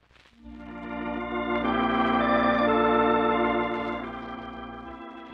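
Music bridge between scenes of a radio play: sustained held chords that come in just after the start, swell to full strength with a chord change or two, then fade after about four seconds and carry on quietly into the next scene.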